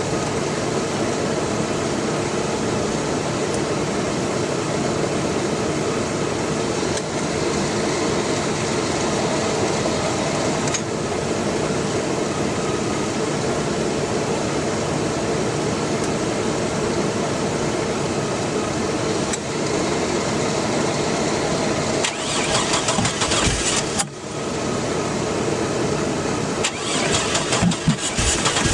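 2001 Chevy Blazer's 4.3-litre Vortec V6 cranking over on the starter without catching, a long steady crank. About 24 s in it stops briefly, then cranks again unevenly. The engine won't fire, which the owner puts down to a distributor timing problem.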